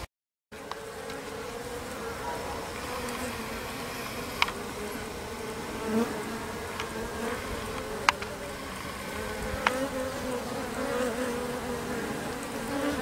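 A freshly hived swarm of Japanese honeybees humming steadily inside the wooden hive box, a low even drone broken by a few short sharp clicks.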